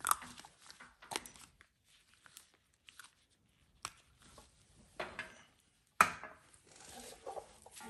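Sharp plastic clicks and cracks as the end cap is snapped and twisted off a two-part SEM Dual-Mix seam sealer cartridge, a few separate ones spread over several seconds. A louder knock comes near the end, followed by brief rustling.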